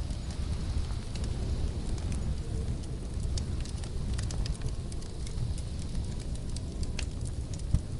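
Wood fire crackling in a fireplace: frequent small sharp pops over a steady low rumble, with one louder pop near the end.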